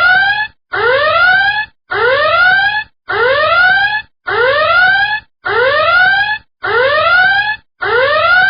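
A warning alarm sounding a repeated rising whoop, about one every 1.2 seconds, each lasting just under a second.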